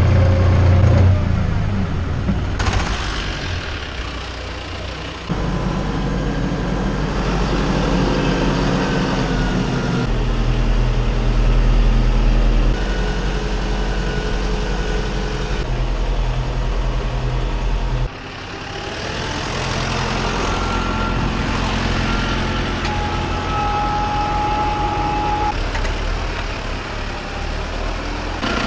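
Tractor engines running in a run of short clips, a steady diesel drone with faint steady whines, its pitch and loudness jumping abruptly at each cut.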